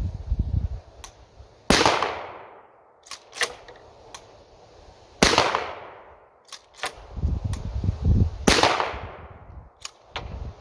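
Three shots from a pump-action 12-gauge shotgun firing slugs, about three and a half seconds apart, each trailing off in a long echo. Between shots the pump action clacks back and forward as the next shell is chambered.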